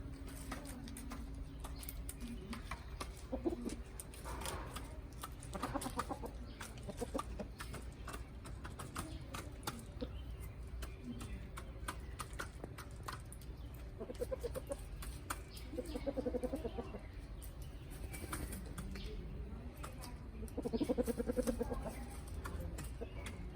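Domestic chickens clucking in short pulsed calls a few times, the loudest call near the end, over many faint short ticks.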